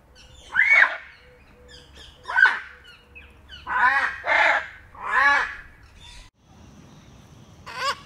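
Macaws squawking: six loud, harsh calls, three of them close together around the middle and the last near the end.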